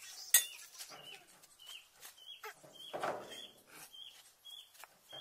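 A bird calling over and over in short, high chirps, about two a second. About half a second in comes a single sharp knock, louder than the calls.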